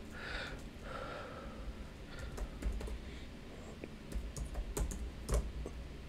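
Typing on a computer keyboard: a run of irregular key taps, a few of them louder near the end.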